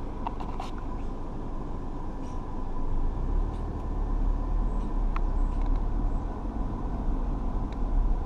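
Car running, a steady low rumble that grows louder about three seconds in, with a few faint short ticks over it.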